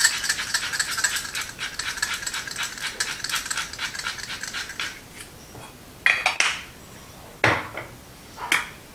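Salt and pepper being added to chickpeas: a quick, dense run of small rattling clicks for about five seconds, then three short clatters of kitchenware being handled.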